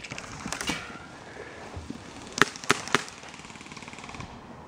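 Airsoft gun firing: three sharp pops in quick succession a little over two seconds in.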